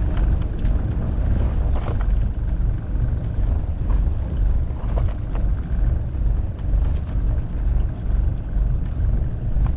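Steady low rumble aboard a small fishing boat at sea, swelling and easing about once a second, with a few faint knocks.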